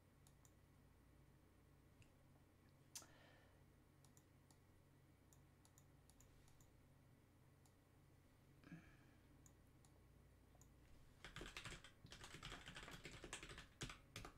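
Faint computer keyboard typing: scattered single keystrokes, then a quicker run of keys in the last three seconds.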